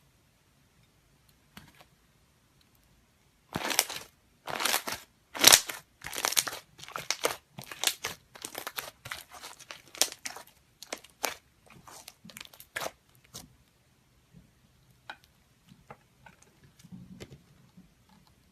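Slime being squeezed and pressed by hand: a run of short crackling squishes about twice a second, loudest early on and thinning out after about ten seconds, then a few faint clicks.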